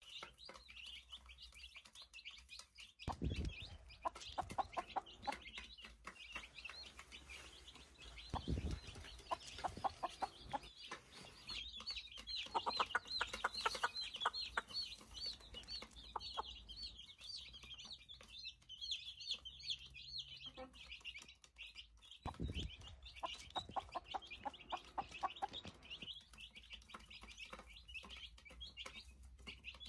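Baby chicks peeping continuously in rapid high cheeps, while an adult chicken clucks in several runs of quick low clucks. A few dull low thumps come in between.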